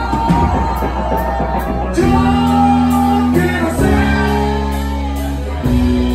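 Live band playing in a club: electric guitars and bass holding long chords that change about every two seconds over a drum kit, with a singer and shouts from the crowd.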